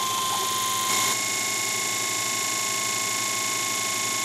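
Small DC diaphragm water pump running, a steady rapid buzz with a whining tone, circulating the water bath. About a second in it steps up slightly and a second, higher whine joins.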